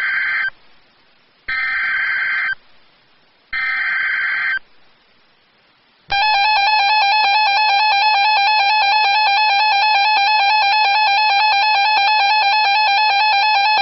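Emergency Alert System signals: three short screeching bursts of digital header data, about a second each and a second apart, opening a new alert. About six seconds in, the harsh steady two-tone EAS attention signal starts and holds, announcing a severe thunderstorm warning.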